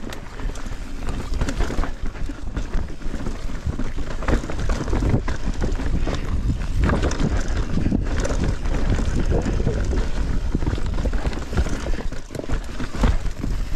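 Wind buffeting the microphone of a rider moving fast on a bicycle, with a heavy low rumble and irregular rattling from rolling over rough ground.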